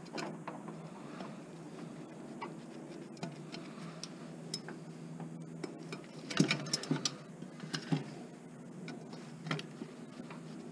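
Scattered light clicks and clinks of metal parts and hand tools being handled while dismantling scrap, with a quick cluster of louder knocks about six and a half seconds in.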